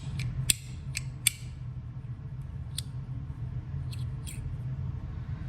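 Sharp clicks from a Starfish haptic fidget slider being slid and pressed in the hand, several in quick succession in the first second and a half, then a few scattered ones. A steady low hum lies underneath.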